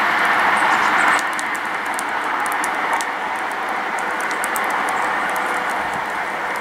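High-speed diesel train (an InterCity 125 HST) running away from the listener: steady noise of the wheels and rear power car, dropping sharply about a second in and then going on at a lower, steady level.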